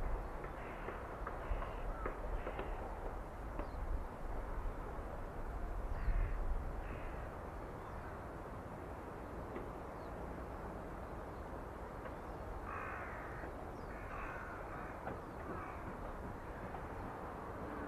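Crows cawing, several short caws in clusters, over outdoor background noise. A low rumble under them fades out about seven seconds in.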